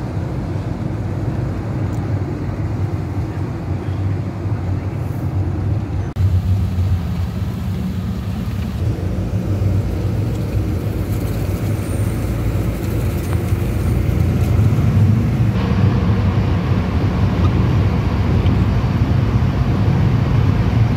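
Steady low rumble of road and engine noise heard inside a moving car's cabin, with a brief dip about six seconds in and growing somewhat louder in the second half.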